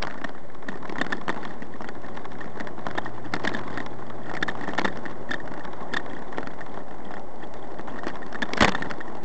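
Road and engine noise of a moving car heard from inside the cabin, full of small rattles and knocks. One sharper knock, the loudest sound, comes near the end.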